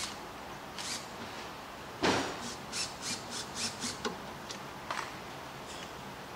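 Hand tool work at the base of a concrete floor grinder during reassembly: a loud clunk about two seconds in, then a quick run of short rasping clicks, about four a second, and a few lighter knocks.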